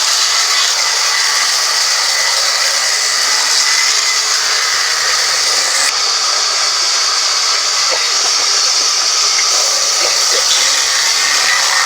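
Band sawmill running steadily with a constant high hiss.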